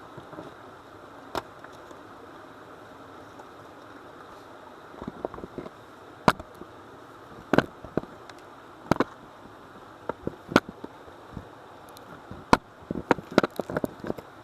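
Irregular sharp clicks and knocks over a steady hiss: a few at first, then more from about five seconds in, bunching together near the end.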